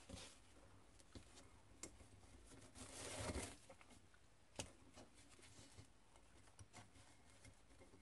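Near silence with faint handling sounds: scattered light clicks, a brief soft rustle about three seconds in, and a sharper click a little after the middle.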